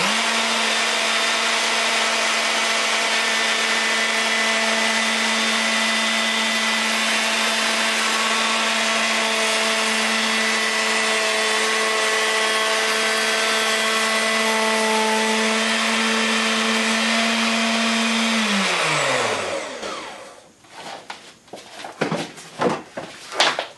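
Electric router with a planing bit running steadily at a constant pitch while it is pushed back and forth in a planing jig, surfacing a rough maple board. It is switched off about 18 seconds in and winds down with a falling pitch. A few light knocks and rubbing sounds follow as the board is brushed and handled.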